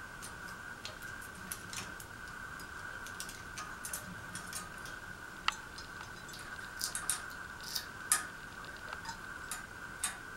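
Irregular light clicks and taps of hand work fitting a ceiling fan's mounting bracket and its screws, the sharpest about 8 seconds in, over a faint steady high hum.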